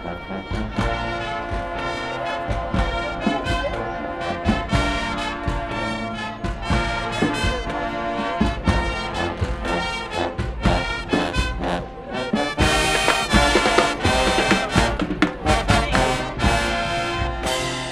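High school marching band playing: brass, with sousaphones among them, over drum hits. The band gets louder about twelve seconds in.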